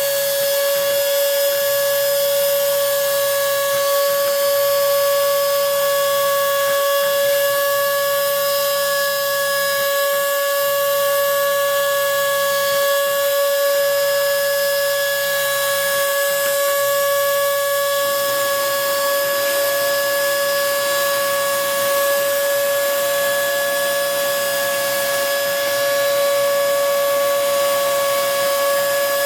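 Homemade CNC router's spindle motor running at high speed with a steady, high-pitched whine while a carbide cutter mills a printed circuit board. About two-thirds of the way through, a second, slightly higher tone joins and the sound grows rougher.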